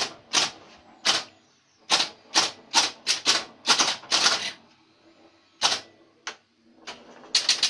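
1970 Bally See Saw electromechanical pinball machine in play: an irregular run of sharp mechanical clacks from its solenoids, bumpers and stepping score reels as the ball is kept moving.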